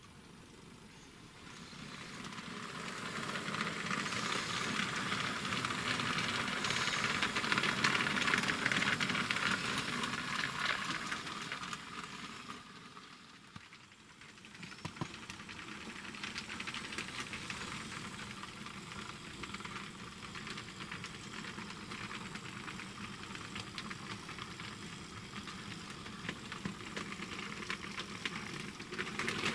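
Model trains running on the layout's track: a steady running noise without any tune, growing louder over the first few seconds, dropping away about 13 seconds in, then picking up again and holding steady.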